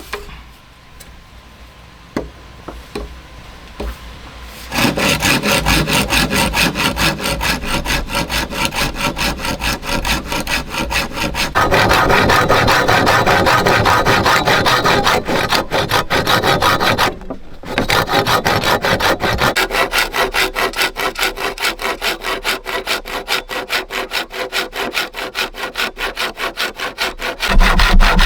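Hand saw cutting through a bamboo pole with quick, steady back-and-forth strokes, starting about five seconds in after a few light knocks, with one brief pause past the middle.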